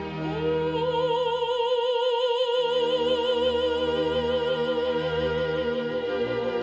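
Operatic singing voice holding one long note with vibrato over orchestral background music; the note slides up into place just after the start.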